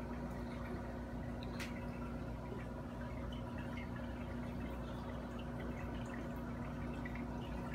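Reef aquarium equipment running: a steady pump hum with water trickling and dripping, and small ticks scattered throughout. One sharper click comes about a second and a half in.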